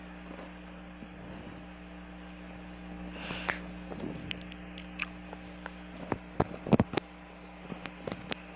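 Room tone during a pause: a low, steady electrical hum with scattered light clicks and taps, more of them near the end.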